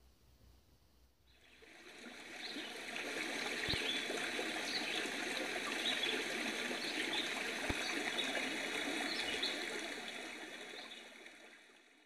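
Running stream water, fading in a second or two in and fading out near the end.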